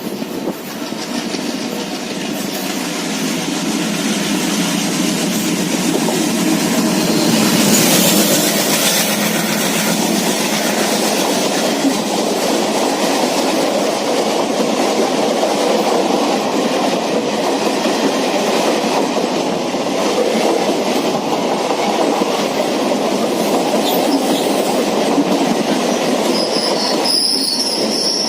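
Passenger train running past close by, its wheels rolling on the rails. The sound builds over the first several seconds and then holds steady, with a thin, high wheel squeal near the end.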